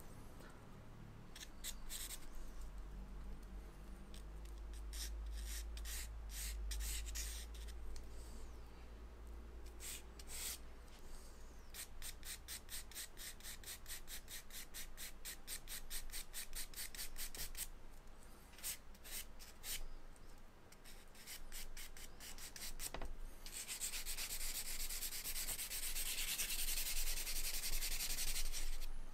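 Charcoal stick scratching on drawing paper in short strokes. In the last few seconds comes a long run of quick back-and-forth strokes, the loudest part.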